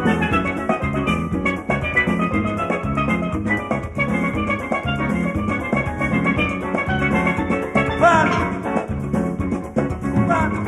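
Live calypso band playing an instrumental passage, a steelpan ringing out its notes over a steady drum beat.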